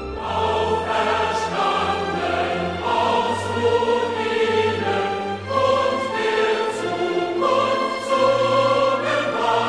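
Background music: a choir singing over an orchestra, in slow sustained phrases.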